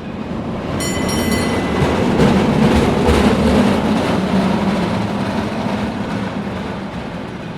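Cable car rumbling past, the sound swelling to a peak a few seconds in and then slowly fading, with a brief high squeal about a second in.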